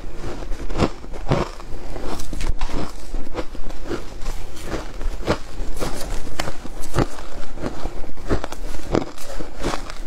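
Shaved ice being crunched and chewed, in irregular crisp crunches, with a metal spoon scraping and scooping through the ice in the bowl.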